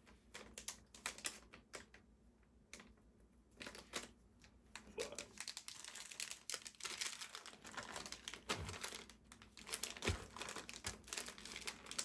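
Small plastic parts clicking and a plastic parts bag crinkling as they are handled. There is a quieter stretch a couple of seconds in, and denser crinkling and clicking through the second half.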